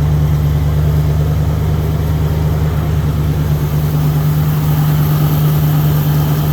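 A 1976 Ford Bronco's V8 engine idling steadily and smoothly on all eight cylinders, at a slightly high idle.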